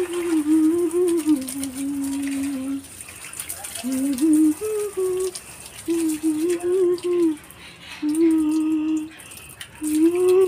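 A woman humming the song's melody without words, in several phrases of held and sliding notes with short pauses between them. The faint hiss of water spraying from a garden hose onto potted plants is underneath.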